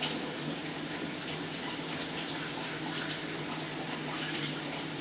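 Kitchen tap running steadily into a sink while hands are washed under it.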